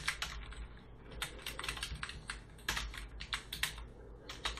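Computer keyboard typing in short runs of keystrokes, with brief pauses between the runs.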